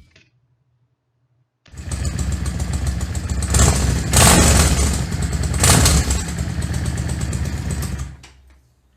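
Yamaha Drag Star 650's air-cooled V-twin running through its stock exhaust customized for a louder, deeper note. The engine comes in suddenly about two seconds in, is blipped twice to louder revs around the middle, and fades out near the end.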